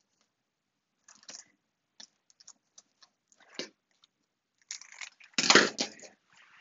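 Fabric scissors snipping through stiff Velcro hook tape: a few faint clicks, then a louder cluster of crunchy snips about five seconds in, with a knock as the scissors are laid on the cutting mat.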